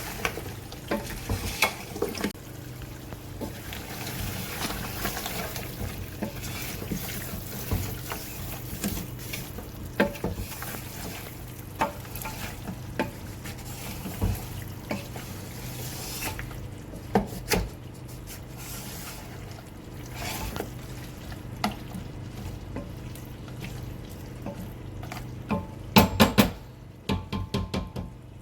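Mutton frying and sizzling in a pot while it is stirred, the spoon repeatedly clinking and scraping against the pot. A quick run of louder knocks on the pot comes near the end.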